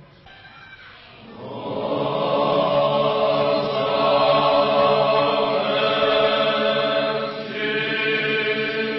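Choir singing a slow, sustained chant. After a short lull, a new phrase swells in about a second in and is held.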